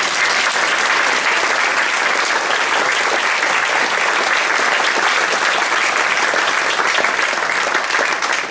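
Audience applauding after a live performance: dense, steady clapping at an even level throughout.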